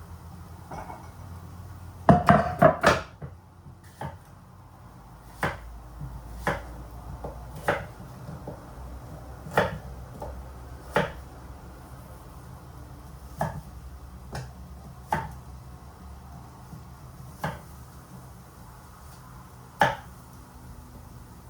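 Kitchen knife cutting on a wooden chopping board: a quick run of loud chops about two seconds in, then single slow cuts every second or so.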